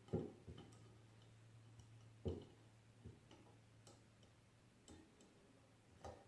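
About half a dozen light, irregularly spaced clicks and knocks, the loudest about two seconds in, from the workstation's toolkit parts being handled and slid onto the post, against near silence.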